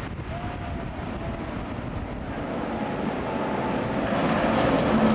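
Steady rumbling, rushing noise of wind buffeting the microphone, growing louder over the last two seconds.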